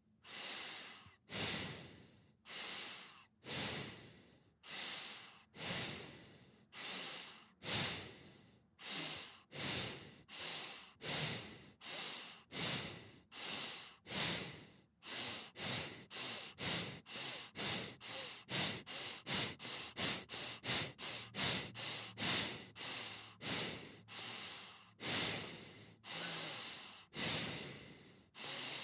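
A person breathing in and out through the nose, each breath an airy hiss. The breaths start slow, about one a second, speed up to around two a second in the middle, then slow again near the end.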